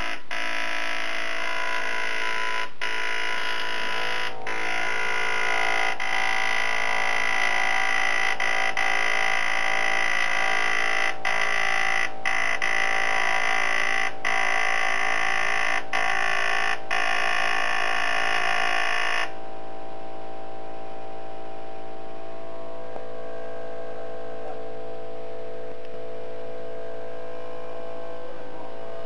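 Portable dot-peen marking machine buzzing as its pin hammers characters into an outboard motor's casing, stamping the engine number, with several brief pauses between characters. About 19 seconds in the hammering stops and a steady hum remains.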